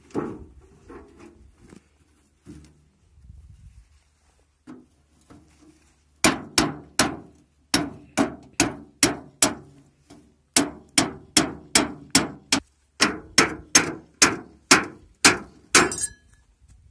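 Hammer striking a hatchet held against a sheet-metal oil tin, cutting the tin open: a few light knocks, then from about six seconds in a steady run of sharp metallic blows, two or three a second, with a short pause partway.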